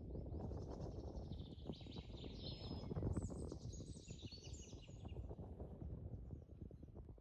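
Small birds chirping in fast runs of high notes, busiest in the middle, over close rustling and crackling of leafy branches being handled.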